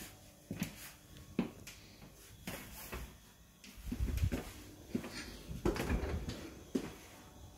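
Kitchen cabinet doors being handled, with short sharp clicks and knocks about once a second and a busier stretch of low thumps and rustling about four to six seconds in.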